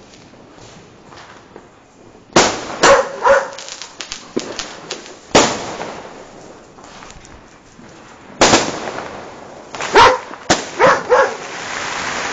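Fireworks and firecrackers going off: three loud bangs about three seconds apart, each followed by crackling. A dog barks several times among them, mostly near the end.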